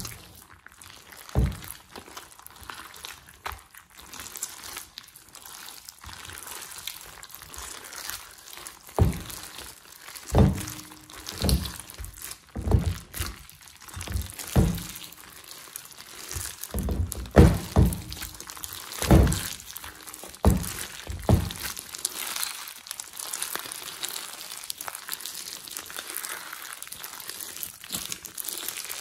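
Slime mixed with foam beads being squeezed and kneaded by hand: irregular wet squelching pops, about a dozen through the middle stretch, over a fine steady crackle.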